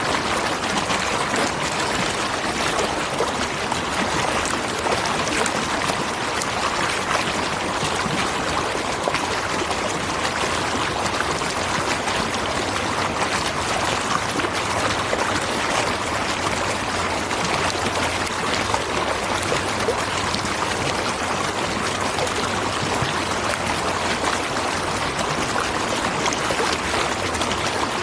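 Natural waterfall: a steady, unbroken rush of falling and splashing water.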